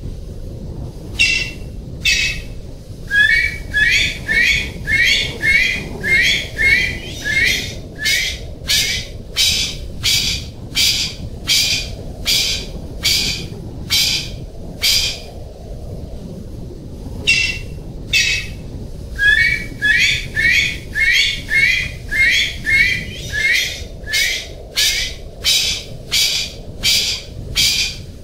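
Golden pheasant calling: a rapid series of short, sharp, high calls, about two a second, in two long bouts with a brief pause about halfway through. A steady low rumble sits underneath.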